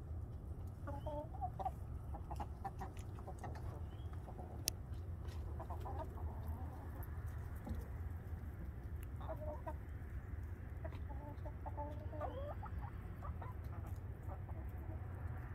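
Hens clucking in short, scattered calls while foraging, over a steady low rumble. A single sharp click just under five seconds in.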